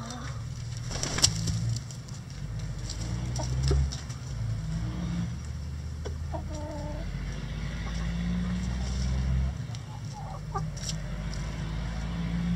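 Backyard chickens clucking, a few short low clucks, over a steady low rumble. A single sharp tap about a second in is the loudest sound.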